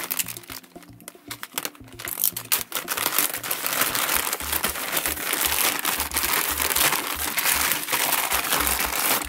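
Thin plastic mailer bag crinkling and tearing as it is pulled open by hand, then the plastic-wrapped item inside rustling as it is drawn out. Quieter at first, with dense, continuous crinkling from about two seconds in.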